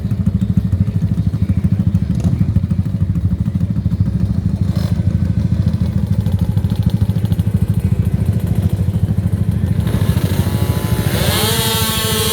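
Small youth ATV engines, including a 2-stroke DRR quad, running with a rapid low throb at the drag-race start line. About ten seconds in, the engines rev up in a rising whine and hold high revs as the quads launch down the strip.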